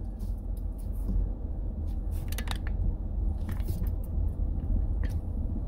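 Cabin noise of a camper van driving slowly over a dirt road: a steady low rumble from the engine and tyres, with scattered light clicks and clinks of loose things rattling.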